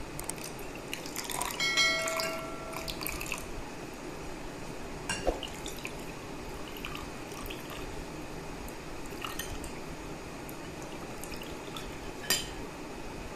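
Orange Tang drink poured from a jug over ice cubes into tall glasses, liquid splashing and trickling. About two seconds in there is a ringing glass clink, and later two sharp knocks.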